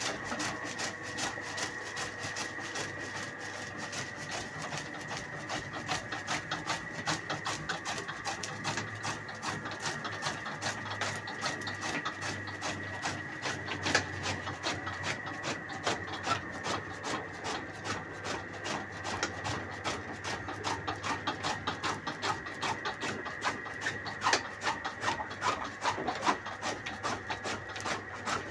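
Chaff cutter machine running steadily, with a rapid stream of cutting clicks over a steady high whine and an occasional sharper knock.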